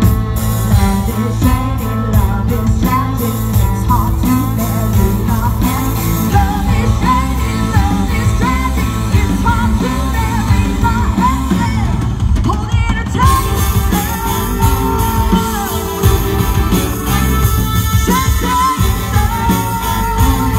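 Country band playing a song, a singer's voice over guitar and a steady bass line.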